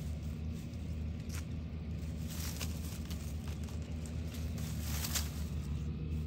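Dry leaves and twigs rustling and crackling a few times, over a steady low hum.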